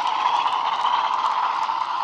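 Model Class 47's DCC sound decoder playing a recorded Class 47 diesel engine through its small speaker as the train runs past, mixed with the light clatter of the model coaches' wheels on the track. The sound is steady and eases off slightly.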